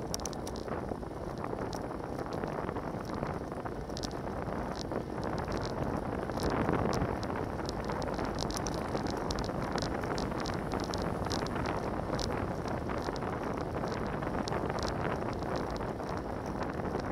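Wind rushing over a bicycle-mounted camera's microphone and road noise from a bike moving at about 35 to 42 km/h. The wind swells briefly about six seconds in, and scattered small clicks sound throughout.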